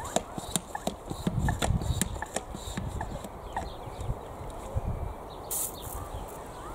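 Handheld pump-action garden pressure sprayer being pumped and handled, giving a run of irregular clicks and knocks, with a brief hiss of spray about five and a half seconds in.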